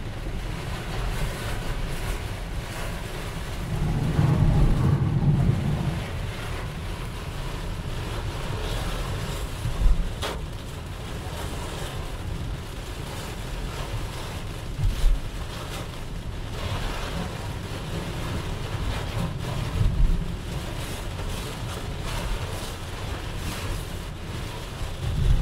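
Heavy downpour on a car moving at speed, heard from inside the cabin: a steady rush of rain on the glass and body mixed with wet road and wind noise. There is a louder low rumble about four seconds in, and a short knock every five seconds or so in the second half.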